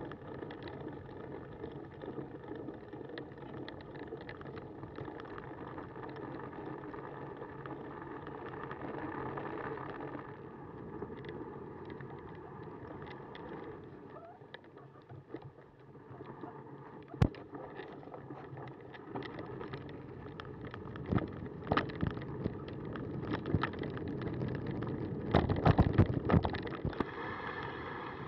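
Cannondale bicycle rolling over a snowy gravel forest track: steady tyre noise with frequent small rattles and knocks from bumps. One sharp knock comes about 17 seconds in, and a louder run of knocks and rattling near the end as the ground gets rougher.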